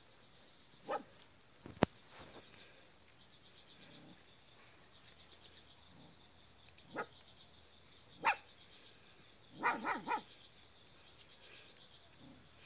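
Young puppies giving short barks: single ones now and then, and three in quick succession near the end.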